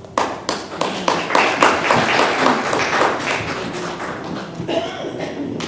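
A small congregation applauding with scattered hand claps, which thin out after about three seconds.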